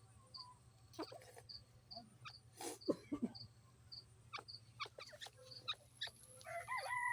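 Partridge giving scattered short chirps and calls, with a faint high pulse about twice a second and a low hum underneath; a rooster begins to crow near the end.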